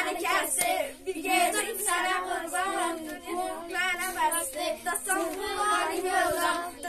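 Young schoolgirls singing a song, unaccompanied.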